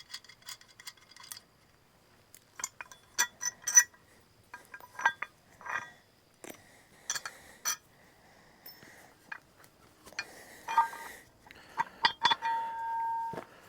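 Steel pins and bolts of an excavator quick coupler clinking and ringing as they are worked loose and handled: a scatter of sharp metal-on-metal clinks. Near the end one piece rings on for about a second.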